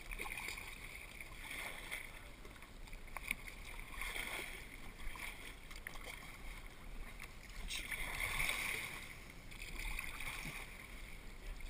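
Kayak paddle strokes in calm, shallow water: the blade splashes and drips in swells every few seconds, with a couple of small knocks against the boat.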